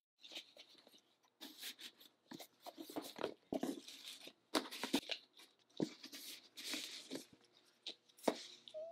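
Fabric ribbon being untied and slid off a cardboard gift box, with irregular rustling, crinkling and small clicks of the box being handled.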